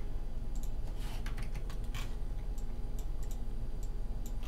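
Computer keyboard keys pressed in irregular, scattered clicks, over a steady low electrical hum.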